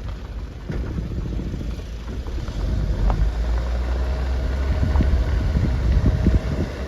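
A vehicle driving on a rough dirt road: a steady low rumble of engine and tyres, with a few sharp knocks from the rough surface. It gets somewhat louder about halfway through.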